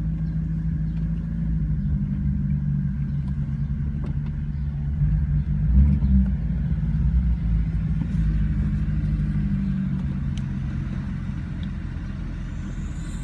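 Car engine idling with a low, steady rumble, heard from inside a car's cabin. It swells briefly about five to six seconds in.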